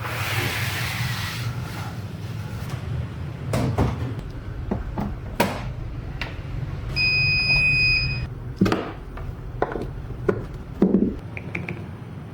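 Deep bass rumble from a JBL PartyBox 100 speaker, with scattered knocks, dropping away near the end. A high electronic beep lasting about a second sounds about seven seconds in.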